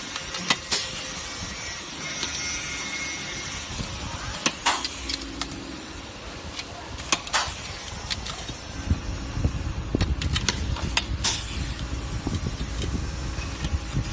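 Aluminium ladder rails and rungs knocking against the steel clamping fixture as they are set in, a handful of sharp metallic clicks over a steady workshop hum. A low rumble comes in about two-thirds of the way through.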